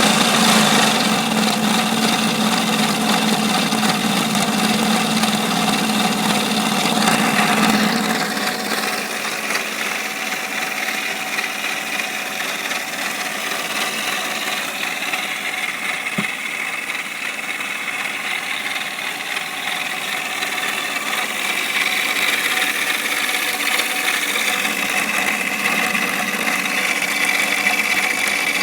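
1996 Mercedes-Benz C280's straight-six engine running, a steady mechanical noise with several steady tones, which the owner takes for a sound problem. A low hum drops out about eight seconds in and it gets quieter, then louder again near the end, with a single click midway.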